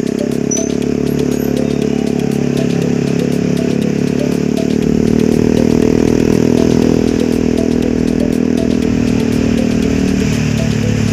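Motor scooter engine running at a steady cruising speed, a little louder about halfway through.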